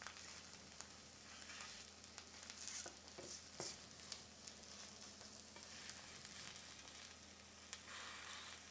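Eggs frying faintly in a small nonstick pan, a quiet, even sizzle, with a few light clicks of the spatula against the pan about three seconds in.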